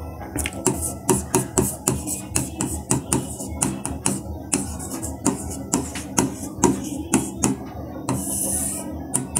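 Stylus tapping and scraping across an interactive whiteboard screen while writing: an irregular run of sharp clicks, several a second, with a short hiss of a long stroke near the end.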